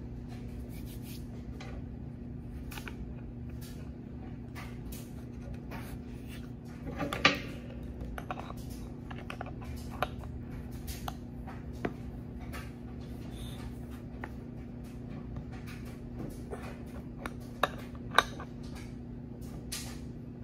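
Wrench clicking and clinking on a metal fitting as it is tightened into the top of an air suspension bag: scattered sharp taps, with a louder clatter about seven seconds in. A steady low hum runs underneath.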